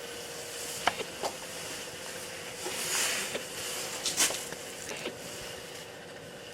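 Washer fluid reservoir of a Citroen C4 knocking in its mount: a handful of short, irregular knocks over a steady hiss and hum. It is a knock commonly mistaken for a suspension knock.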